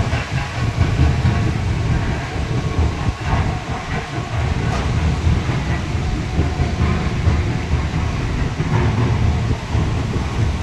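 Stone-crushing plant running: a steady, heavy low rumble with uneven clatter from the crusher and its conveyor belts.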